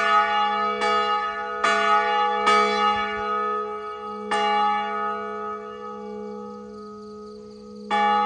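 Church bell tolling: four strokes about 0.8 s apart, a fifth after a short gap, then a lull while the ringing dies down and a sixth stroke near the end. Each stroke rings on with a long, humming tone.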